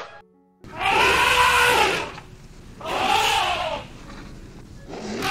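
Elephant trumpeting: three loud, brassy calls about a second long each, every one rising and then falling in pitch, the third starting near the end.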